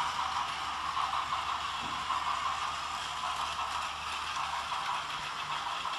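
Battery-powered Plarail toy trains running on plastic track: a steady whirring of small motors and gears with light rattling of the wheels. A low hum underneath drops away a little before the end.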